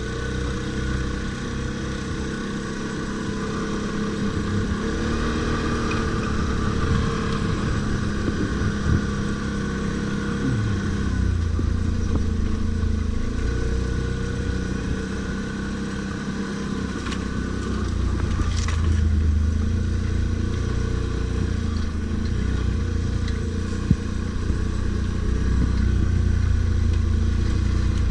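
Stels Guepard 850 ATV engine running while riding off-road, its pitch rising and falling with the throttle and a heavier low rumble from about eleven seconds in. A few short knocks sound over it.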